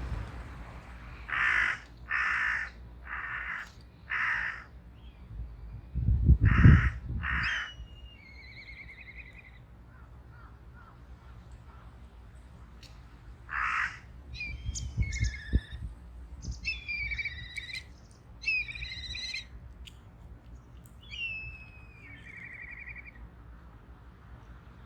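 A crow cawing: a run of four harsh caws about a second apart, then two more. Later, other birds chirp and give short gliding whistled calls. A brief low rumble about six seconds in is the loudest moment.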